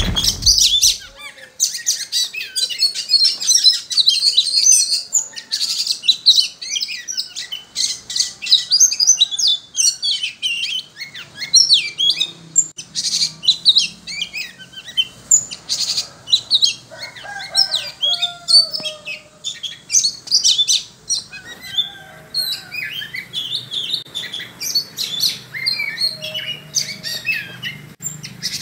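Oriental magpie-robin of the Sumatran Medan type (kacer Medan) singing a long, fast, varied song of rapid chirps and trills without pause. A few lower sliding whistled notes come in about two-thirds of the way through.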